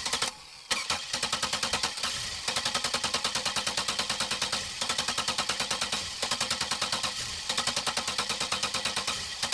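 Car's starter cranking the engine over in several long tries, a fast even chugging of about eight beats a second with short pauses between tries, the engine failing to catch.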